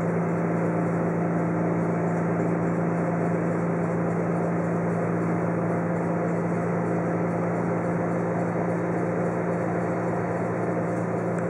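Steady drone inside a diesel railcar running at constant speed: an even low engine hum with running noise from the train, unchanging throughout.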